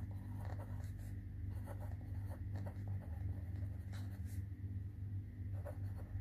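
Pen writing on paper in short, irregular strokes over a steady low hum.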